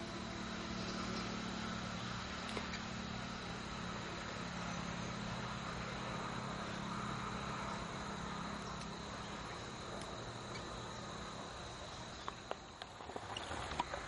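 Steady outdoor background noise: a low, distant engine-like drone and a thin, steady insect tone. The drone fades about three-quarters of the way through, and a few sharp clicks follow near the end.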